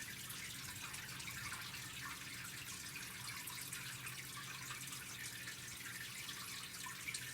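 Steady background hiss with a faint crackle and a low electrical hum: room tone with no speech.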